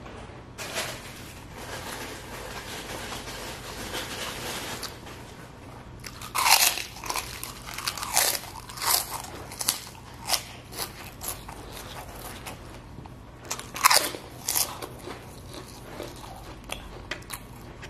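Close-miked eating: soft chewing of a mouthful of noodles, then from about six seconds in a string of loud, crisp crunches as a cracker is bitten and chewed, the sharpest near six and fourteen seconds in.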